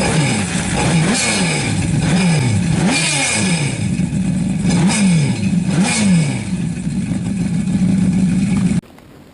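Yamaha WaveRunner jet ski engine running hard, its pitch falling and climbing again about once a second, with rushing noise over it. It cuts off suddenly near the end.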